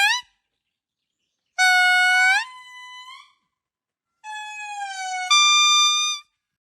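A monkey's long, clear pitched calls: two drawn-out calls, each held steady and then gliding or stepping up in pitch near its end, after the tail of an earlier call right at the start.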